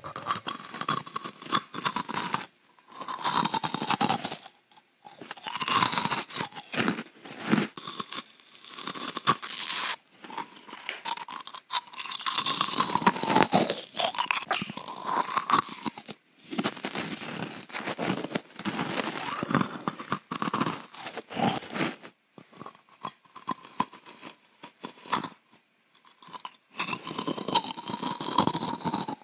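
Close-miked eating: loud crunching and chewing of food in bursts of a second or a few seconds, with short quiet gaps between mouthfuls.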